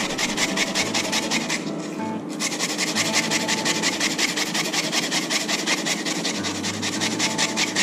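Peeled onion rubbed back and forth on a microplane grater in quick, even rasping strokes, several a second, with a short pause about two seconds in, as the onion is ground to a fine wet slurry.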